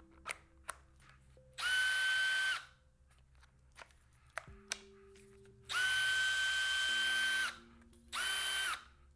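Milwaukee M12 Fuel cordless installation drill/driver's brushless motor spinning free with no load, triggered in three short bursts. Each burst is a steady whine that spins up and winds down, and the second is the longest at about two seconds. A few light clicks sound between the bursts.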